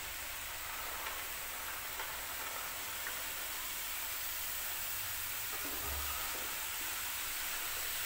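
Chopped carrots and peas sizzling in hot masala in a kadhai: a steady frying hiss, with a few faint clicks as they are tipped in and stirred with a wooden spatula.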